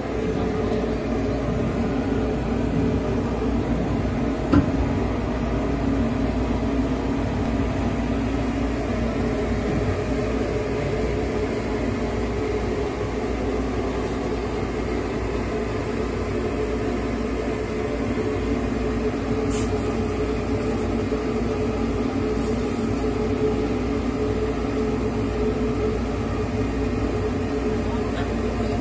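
Steady mechanical hum of running machinery, even in pitch and level throughout, with one sharp metallic clink about four and a half seconds in.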